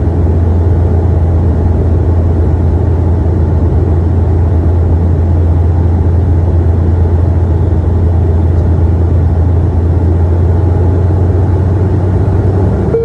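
Cabin noise of a turboprop airliner in flight: a loud, steady, low propeller drone over engine rumble.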